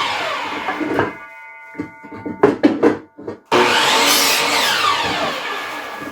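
An electric power tool's motor runs and winds down with a falling pitch about a second in. Its spinning blade or bit rings for a moment, and a few wooden knocks and clatters follow as oak boards are handled. About 3.5 s in the motor starts again suddenly, rises in pitch and then falls away.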